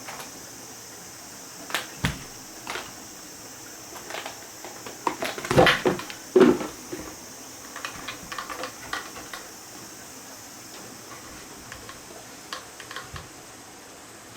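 Scattered clicks and knocks of small hard parts being handled, with a cluster of louder knocks between about five and six and a half seconds in, over a steady high hiss.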